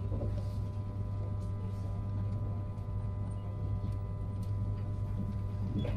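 Steady low hum inside a Renfe passenger train carriage, with a few faint steady tones above it and occasional faint ticks.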